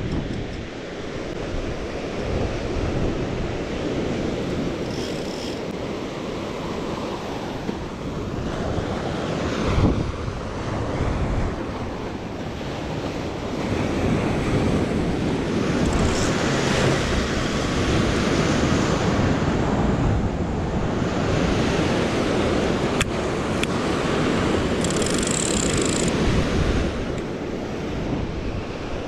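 Ocean surf breaking and washing up a sandy beach, swelling and easing every few seconds, with wind buffeting the microphone.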